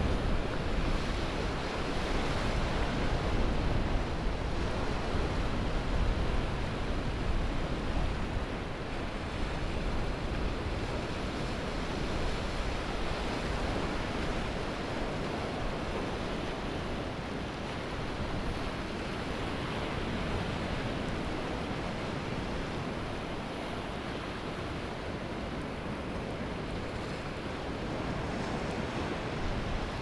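Ocean surf washing onto a sandy beach: a continuous rush of breaking waves, a little louder in the first few seconds and then settling to a steady wash.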